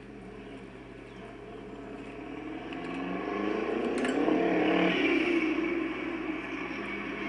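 Twin-engine Renault Clio 16v driving on the runway, its engine note growing louder from about three seconds in and rising in pitch as it accelerates, then easing off slightly near the end.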